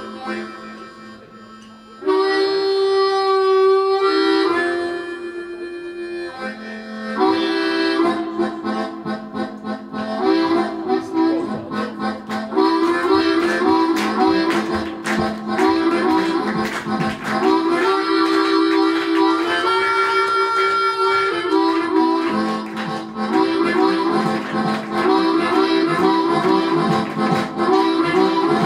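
Blues harmonica playing: a few long held notes first, then quicker rhythmic phrases from about eight seconds in, with a steady rhythmic backing behind it.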